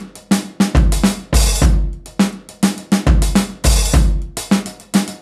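Sampled 1950s acoustic drum kit playing a breakbeat, finger-drummed on drum-machine pads: kick, snare and hi-hat hits in a quick, uneven groove.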